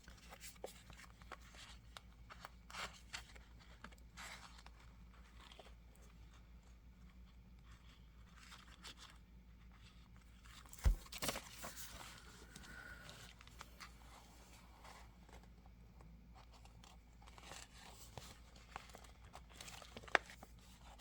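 Faint crinkling and rustling of a clear plastic planner cover being handled and fitted, with a sharp knock about eleven seconds in and a click near the end.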